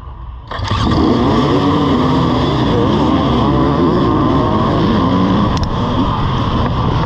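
A row of off-road dirt bikes, the rider's own Husqvarna among them, opening up hard together at a race start. The sound comes in suddenly about half a second in and stays loud, several engines' pitches rising and falling over one another as they accelerate away.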